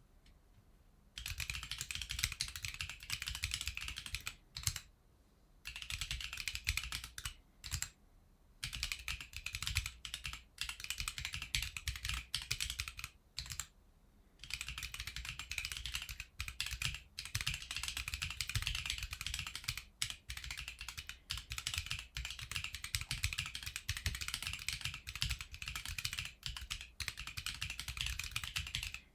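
Typing on a Corne (crkbd) split keyboard with Drop Holy Panda tactile switches and ErgoDox EZ keycaps: long runs of rapid key clacks starting about a second in, broken by a few short pauses.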